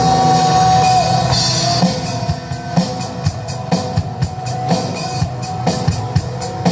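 Rock band music: a held note ends about a second in, then a drum kit comes in with a steady beat of kick drum and cymbal, about two beats a second.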